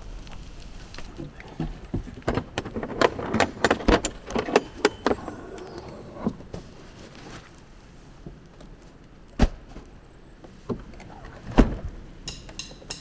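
Hard plastic rooftop cargo case being opened, gear shifted around inside, and the lid shut again: a run of latch clicks, rattles and light knocks in the first half, then two sharper knocks later as the lid comes down.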